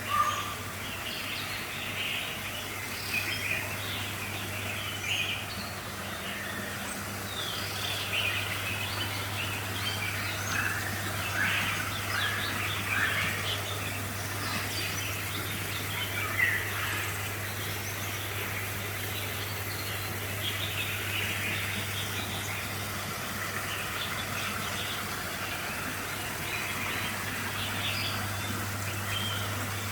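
Small caged birds chirping and twittering continually, many short calls overlapping, over a steady low hum.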